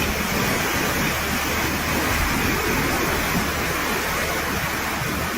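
Steady, loud rush of water, starting abruptly and holding an even level.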